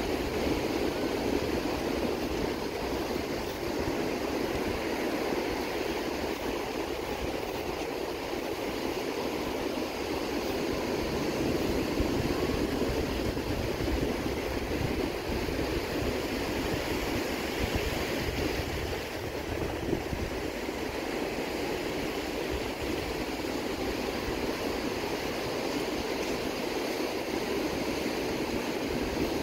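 Ocean surf breaking and washing up a sandy beach: a steady rushing noise with an uneven low rumble underneath.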